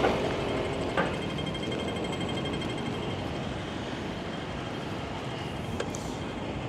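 Bicycle freewheel ratchet clicking rapidly as the bike coasts, over steady street traffic noise, with a single sharp click about a second in.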